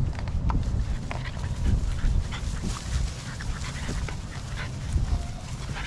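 American Bully puppies playing and wrestling in grass, giving short whimpers and yips, with scattered small rustles, over a low rumble.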